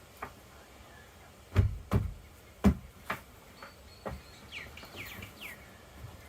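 A few sharp knocks or thumps, the loudest about a second and a half in and again near the middle, from work on the van's panels; then near the end a bird gives a quick run of short falling chirps.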